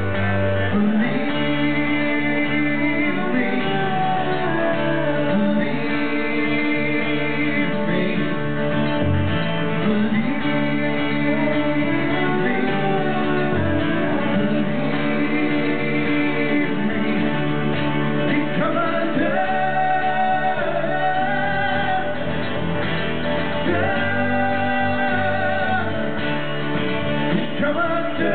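Live acoustic pop song: male voices singing over strummed acoustic guitars.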